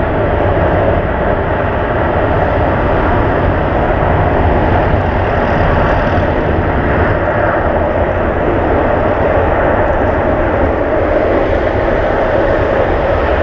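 Jet engines of a McDonnell Douglas MD-11F trijet freighter, a loud, steady rumbling noise that holds without change.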